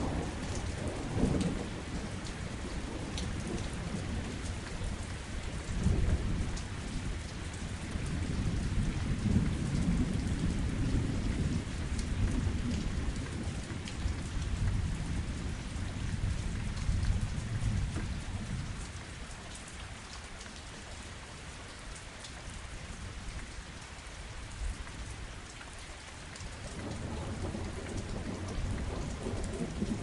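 Steady rain falling with thunder rolling beneath it in low rumbles that swell and fade several times, loudest about six seconds in and around ten seconds, dying down for a while before building again near the end.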